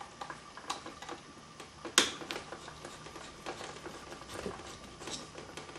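Faint small clicks and scrapes of a screwdriver turning a wall switch's terminal screw down onto the hot wire, with one sharper click about two seconds in.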